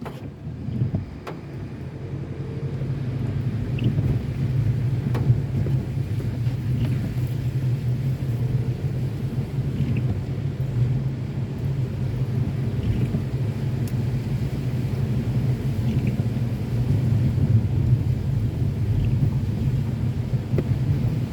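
Car driving along, a steady low rumble of engine and road noise that grows louder over the first few seconds and then holds, with a few faint ticks.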